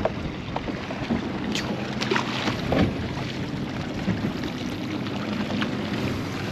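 Wind on the microphone and water slapping against the hull of a small boat, with a low steady hum underneath and a few short knocks and clicks from handling gear on deck.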